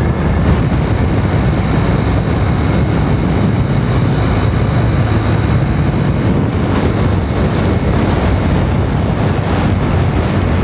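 Bajaj Boxer 100cc single-cylinder motorcycle engine running steadily at cruising speed through its stock exhaust, with wind noise on the microphone.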